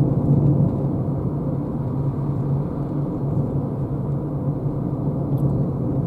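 Steady road and tyre rumble inside the cabin of a Renault Zoé electric car cruising at about 65–70 km/h. There is no engine note.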